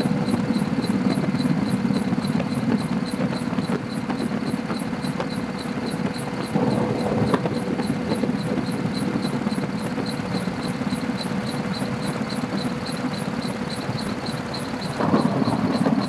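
Helicopter cabin noise: a steady low drone with a faint steady whine and a regular faint pulsing, about three a second, growing louder about a second before the end.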